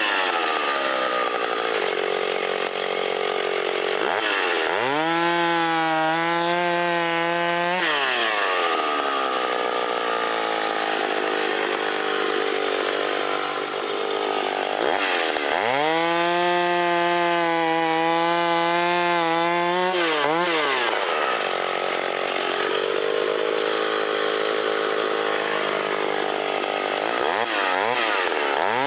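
Vintage Stihl two-stroke chainsaw cutting through a large log at full throttle. The engine note sags and wavers while the chain is loaded in the wood, then rises to a steady high pitch whenever the saw comes free of the cut, about twice, before bogging down again.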